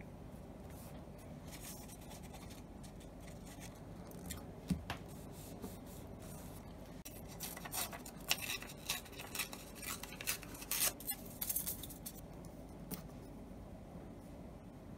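Paper being handled on a journal page: short crinkling rustles and small crisp clicks, bunched together about halfway through, over a steady low hum.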